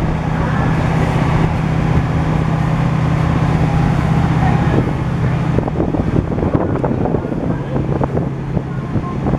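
Boat motor running steadily, with wind noise on the microphone. From about six seconds in there is a run of short, irregular knocks.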